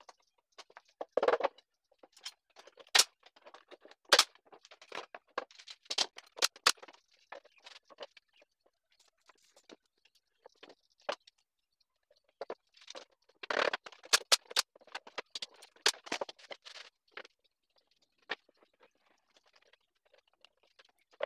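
Wooden boards being handled on a workbench: scattered knocks, clicks and scrapes at irregular times, busiest about thirteen to fifteen seconds in.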